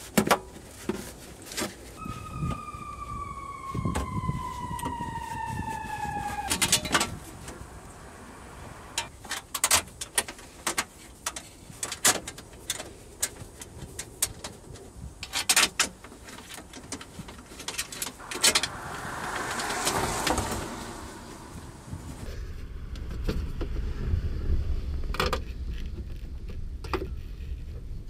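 Scattered metallic clicks, clinks and knocks of a screwdriver, bolts and hands against the sheet-metal hybrid battery case and car body as the battery is bolted back in. A falling tone with overtones lasts about four seconds near the start, and a low rumble sets in near the end.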